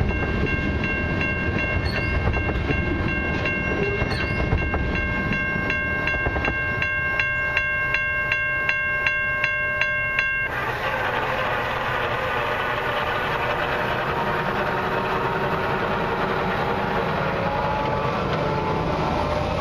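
Level crossing warning bell ringing at about two strokes a second while the last tank cars of a CN freight train roll past with a low rumble. The bell cuts off suddenly about ten seconds in, once the train has cleared, leaving a steady rush of noise.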